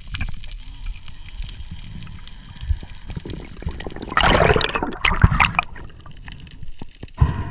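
Water bubbling and gushing past an underwater camera, with low knocks of handling noise; a short loud rush of bubbles comes about four seconds in, followed by a few sharp clicks.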